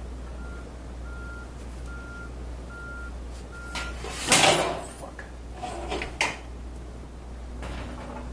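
Five short beeps at one pitch, about three-quarters of a second apart, over a steady low hum. About four seconds in comes a loud metal clatter, then a few lighter knocks, as a motorcycle front fork leg and its parts are handled during an oil drain.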